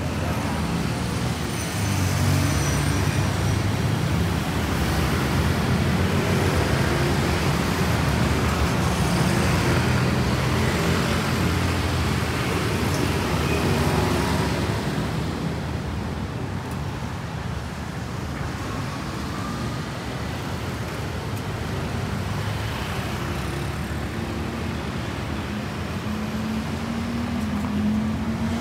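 Busy street traffic: vehicle engines running and passing in a continuous hum, loudest in the first half and easing off about halfway through.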